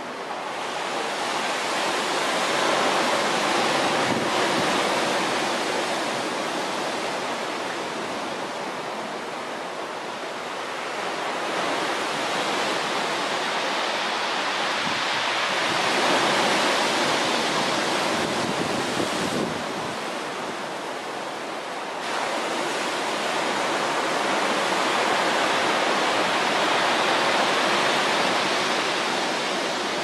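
Pacific Ocean surf breaking and washing up the beach: a continuous rush that swells and eases as each set of waves comes in.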